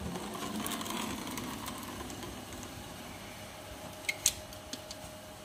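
Faint handling and scraping as a caulking gun lays silicone sealant into the inside corners of a pre-insulated duct elbow, with two sharp clicks about four seconds in. A faint steady hum runs underneath from about two seconds on.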